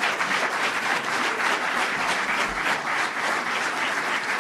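Audience applauding: many people clapping at once in a steady stream of hand claps.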